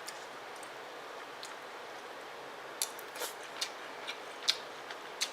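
Eating sounds: a handful of light, sharp clicks and taps, scattered irregularly through the second half, over a steady background hiss.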